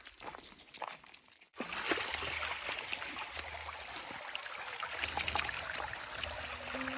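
Running stream water, a steady hiss that starts abruptly after a cut about one and a half seconds in, with faint taps before it. A held music note comes in near the end.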